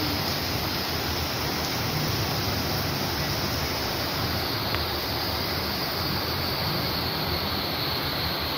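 Steady wash of water from a street flooded by a rainstorm: floodwater running along the road, possibly with heavy rain, as an even noise with no breaks.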